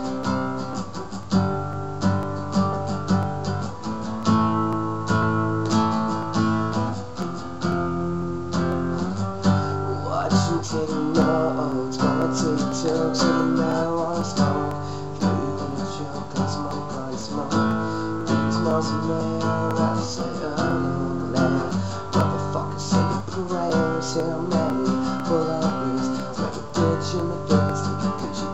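Acoustic guitar strummed steadily, its chords changing every second or two.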